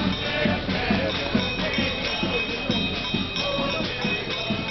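Music with a steady drum beat of about three beats a second.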